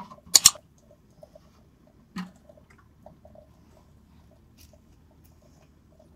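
Two sharp clicks in quick succession about half a second in, a duller knock about two seconds in, then faint scattered ticks and patter.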